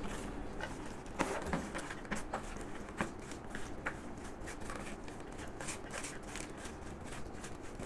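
Hands working through a damp, crumbly fertilizer mix of powdered eggshell, cow dung powder and used tea leaves in a dish, giving soft, irregular rustling and crackling with scattered light clicks.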